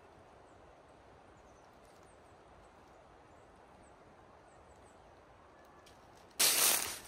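Quiet woodland background with a few faint high chirps. Just over six seconds in, a sudden loud rustling noise starts close to the microphone.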